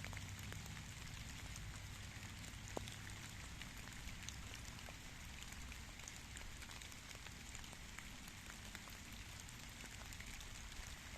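Steady rainfall with many small drop taps scattered through it, and one sharper tap a little under three seconds in.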